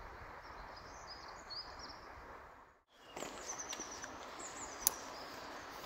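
Woodland ambience: a steady background hiss with small birds chirping in short, high notes. The sound breaks off briefly just under three seconds in and resumes, and a single sharp click comes about five seconds in.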